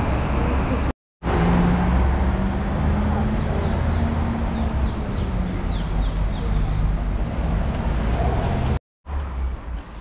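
City street traffic with a vehicle engine running close by, giving a steady low hum over the traffic rumble. A few faint high chirps come in the middle, and the sound cuts out abruptly twice.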